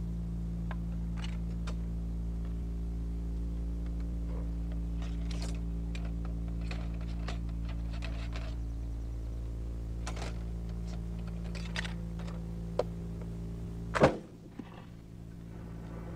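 Muzzle-loading rifles being reloaded: scattered light clicks and knocks from the ramrod and from handling the guns, over a steady hum, with one sharper, louder knock near the end.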